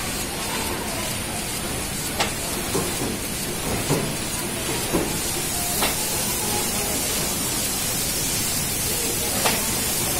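Biscuit packing machine running: a steady hissing mechanical noise, with sharp clicks from its mechanism at irregular intervals, about six in all.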